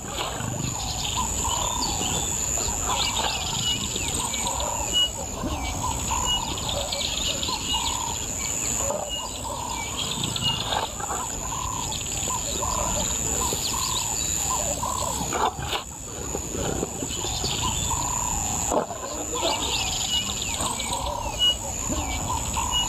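Wild birds chirping in repeated short calls over a steady, high-pitched insect drone, with a low rumble underneath.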